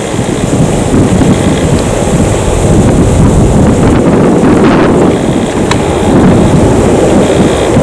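Airbus A320's twin CFM engines running with a loud, steady jet rumble during departure, with wind buffeting the microphone.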